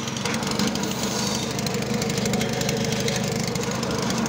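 Small petrol engine running steadily, belt-driving a grass chopper's rotor, with an even, rapid firing pulse.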